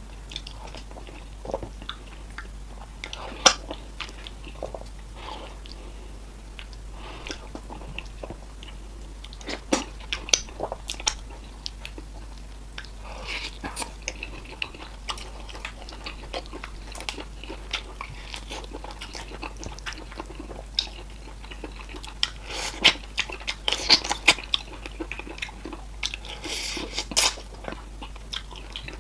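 Close-miked eating of fufu with soup: chewing with wet mouth smacks and irregular sharp clicks, busiest in the last few seconds.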